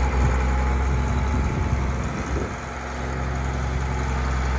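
Digger-derrick boom truck's engine running steadily, easing briefly about halfway through.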